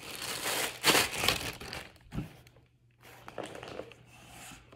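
Plastic packaging crinkling and rustling as snack and candy packets are handled and lifted out of a cardboard box, in bursts, with a light knock about two seconds in.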